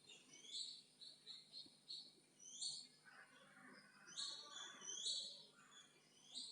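Faint bird chirps: short, high, rising calls repeated a dozen or so times at uneven intervals.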